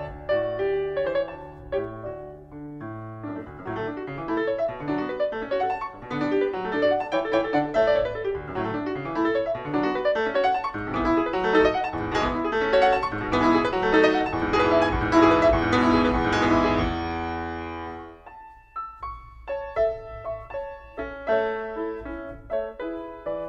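Background piano music: a flowing run of notes that grows fuller, dies away about eighteen seconds in, then picks up again with sparser notes.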